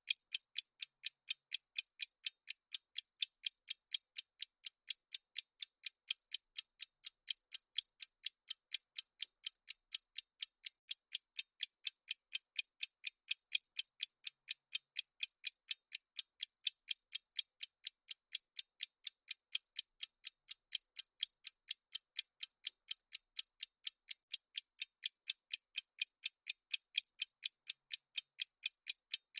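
Clock-ticking sound effect of a countdown timer: crisp, evenly spaced ticks, several a second, keeping a steady pace throughout.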